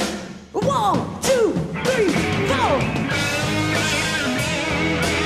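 Live hard rock band in an instrumental break: an electric lead guitar bends and slides through notes, then the band settles into steady held chords over the drum kit about three seconds in.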